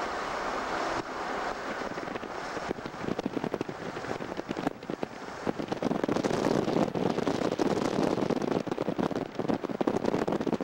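Steady rush of road and wind noise from a moving car, growing louder and rougher about six seconds in, with wind crackling and buffeting on the microphone.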